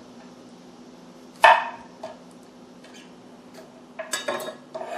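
A chef's knife chops through the end of a zucchini onto a wooden cutting board with one sharp knock about a second and a half in. Near the end the steel knife is set down on a granite countertop with a short clatter. A faint steady hum runs underneath.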